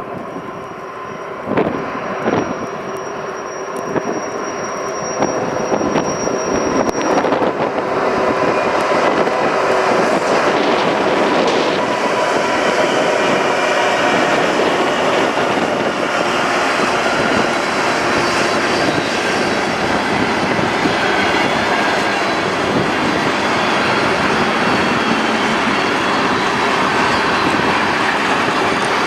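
Freight train passing close by. The sound builds over the first several seconds, then settles into a loud, steady rumble of rolling cars.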